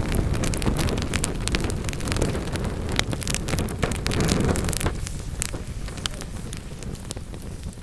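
Wood-burning fire in a fireplace crackling, with many irregular sharp pops over a low rumble. The rumble eases after about five seconds while the crackling continues.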